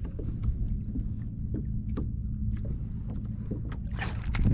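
Low steady rumble of water and wind around a kayak, with scattered light clicks from a spinning reel being cranked as a small fish is reeled in. About four seconds in, a loud rushing burst of noise rises as the fish reaches the kayak.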